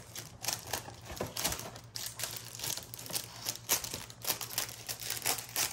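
Plastic cracker packaging crinkling and crackling in irregular bursts as crackers are pulled out of their boxes.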